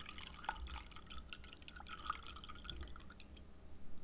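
Liquid dripping and bubbling: a rapid patter of small drips and pops that thins out near the end.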